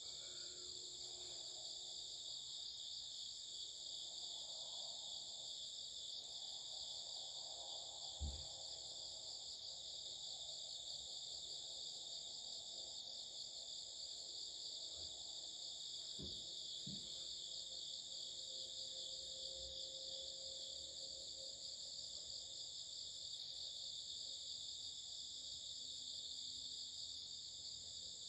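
Many insects chirring together in a steady, faint, high-pitched chorus. A short low thump sounds about eight seconds in, and two smaller knocks come about halfway through.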